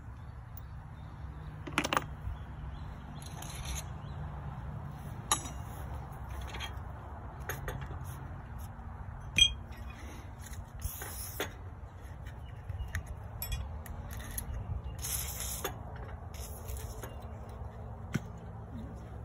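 A few sharp metal clinks and taps as the knife sections and tools of a sickle bar mower's cutter bar are handled, the loudest about nine seconds in, with three short hissing bursts, over a steady low rumble.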